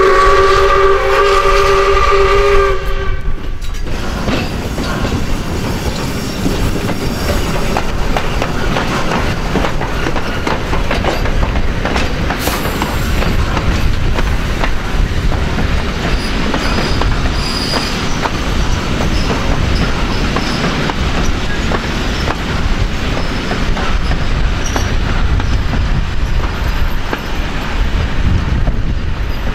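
Steam locomotive 621's whistle sounds a chord of several steady tones for about three seconds and cuts off, then the train runs on with a steady rumble and the clicking of wheels over rail joints.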